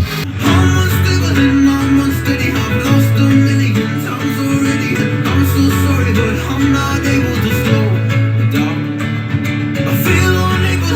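Guitar-led song with strong bass notes playing loudly through a CloudWalker 2.1 soundbar and its subwoofer; the music breaks off and a new passage starts right at the beginning.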